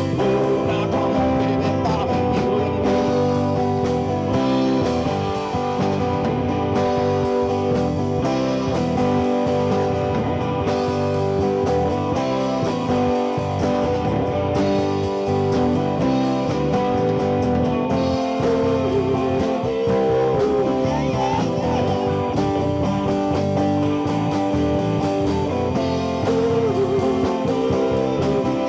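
Live rock band playing: electric and acoustic guitars over a drum kit with steady cymbal strokes, and a lead singer.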